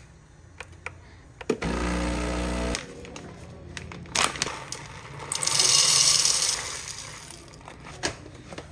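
A Breville espresso machine with a built-in grinder gives a steady motor whir for about a second. Then the paper bag crinkles and coffee beans rattle out of it into the grinder hopper for over a second, and the hopper lid goes on with a click near the end.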